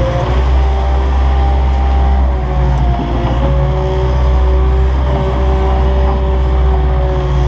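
Zeppelin ZL 6B wheel loader's diesel engine running, heard from inside the cab: a deep steady rumble with a whine over it that rises and falls slightly in pitch as the loader drives and works its grab bucket.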